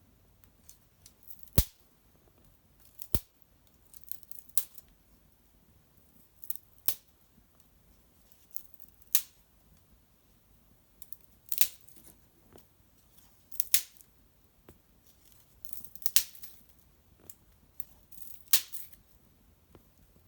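Small fire of dried maple twigs in an irori hearth crackling: sharp pops and snaps at irregular intervals, roughly one every second or two.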